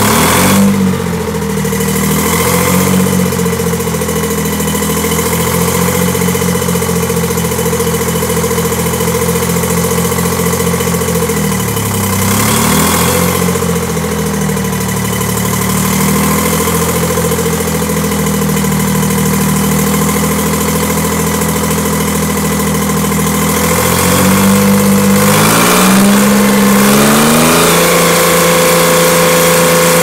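Rebuilt 1959 GM Detroit Diesel 3-71, a two-stroke three-cylinder diesel, running loudly just after starting. Its speed dips and recovers about twelve seconds in, wavers again later, and settles at a higher steady speed near the end while it drives the sawmill's circular blade.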